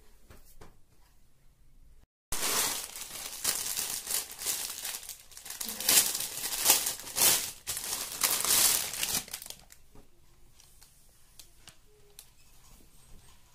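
Clear plastic polybag crinkling loudly as it is pulled open and a folded dress is drawn out. It starts abruptly about two seconds in and dies away after about seven seconds, leaving softer handling of the dress fabric with a few light clicks.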